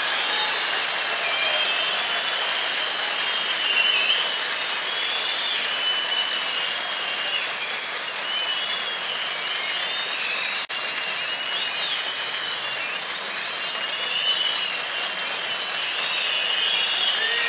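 Large hall audience applauding steadily, with high wavering calls rising and falling over the clapping.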